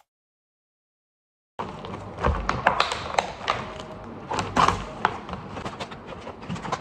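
After a sudden start, a busy run of taps, knocks and light thumps as a boxed present and its packaging are handled.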